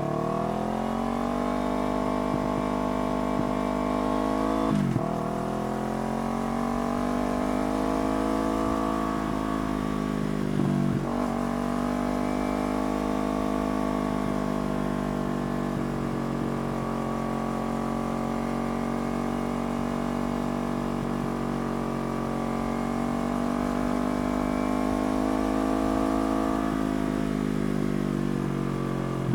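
Yamaha R3's 321 cc parallel-twin engine through a slip-on exhaust, pulling under acceleration, with two quick upshifts about 5 and 11 seconds in where the pitch dips and picks up again. It then holds a steady cruise, easing off slowly, and the pitch drops near the end as the throttle closes.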